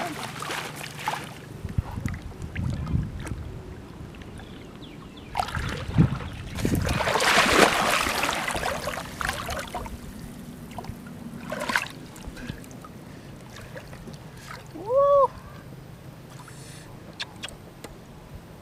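Water splashing and sloshing in irregular bursts as hands pull a fishing net through shallow floodwater and pick fish from it, the longest and loudest burst lasting about three seconds a third of the way in. About three quarters of the way through comes a short, loud tone that rises and falls in pitch.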